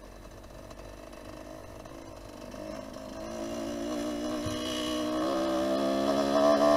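Dirt bike engine running, faint at first and getting steadily louder, its steady, slightly wavering note building through the second half.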